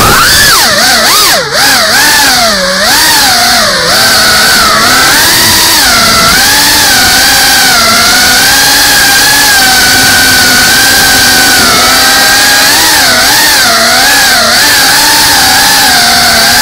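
FPV drone's brushless motors and propellers whining under a steady rushing hiss, the pitch swooping up and down with the throttle. The swoops come quickly in the first few seconds and again near the end, with a steadier stretch in the middle.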